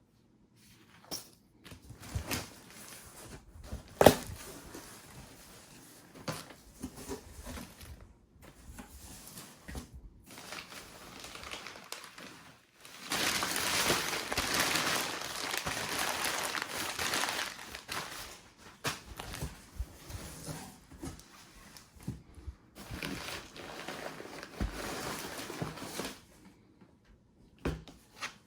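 Model kit packaging being handled: crinkling and rustling, with scattered clicks and knocks, including a sharp knock about four seconds in. A longer, louder spell of crinkling lasts about five seconds near the middle, and another comes near the end.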